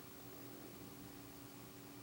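Near silence: faint room tone, a steady hiss with a low hum.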